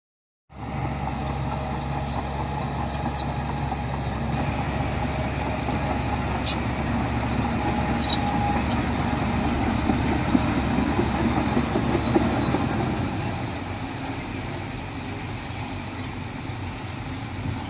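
Heavy diesel machinery working: an engine running steadily, with scattered sharp clicks and clanks. It grows louder toward the middle, then eases off.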